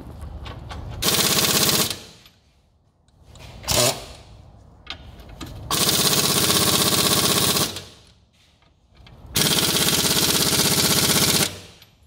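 Pneumatic impact wrench hammering in three bursts, about one second, then two, then two seconds long, as it works to break loose the bolts on the front wheel hub and knuckle.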